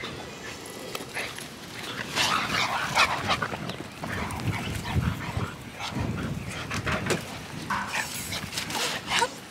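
American bully puppies play-fighting, yipping and whining with a few short barks. The noises come in irregular bursts from about two seconds in.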